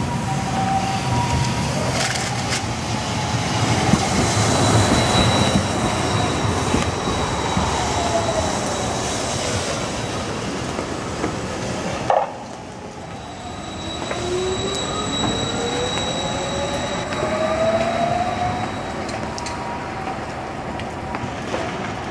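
Hiroden 5000-series Green Mover low-floor tram running on street track: a steady rumble of wheels on rail with an electric motor whine that falls in pitch as it passes. The sound cuts suddenly about halfway through to a quieter take, where the tram moves off on a curve with its whine rising in pitch and some wheel noise.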